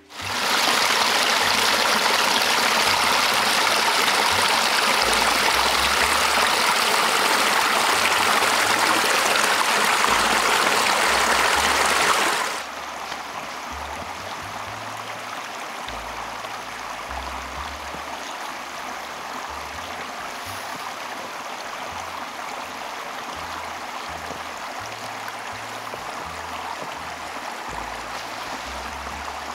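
Small mountain creek running, a steady rush of water. It is loud for about the first twelve seconds, then drops suddenly to a quieter, steady flow.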